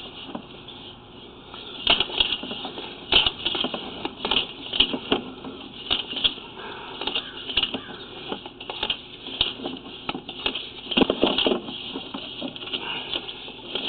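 Sewer inspection camera being pushed along a sewer pipe: irregular clicks, knocks and scraping as the camera head and its push cable bump along the pipe walls and joints.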